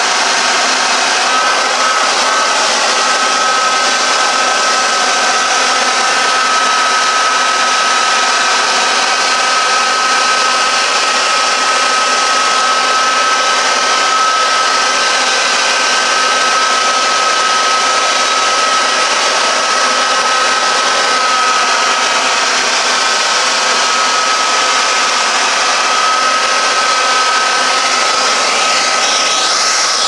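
Hair dryer blowing steadily: a loud rush of air with a steady high whine from its motor.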